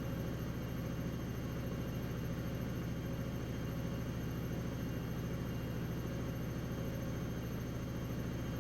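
Atlant 70U1214 front-loading washing machine on a high-speed spin, its drum running with a steady hum and whir.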